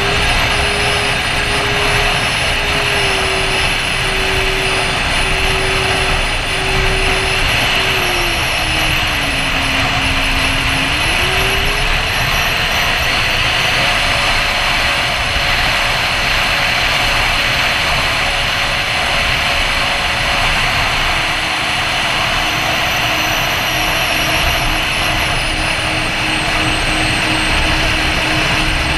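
Onboard sound of a Freewing A-10 RC jet's twin electric ducted fans running, heard through heavy wind rush over the underside-mounted GoPro. A steady whine drops in pitch a little under halfway through, climbs higher again, then settles lower near the end, with a thin wavering high whine above it.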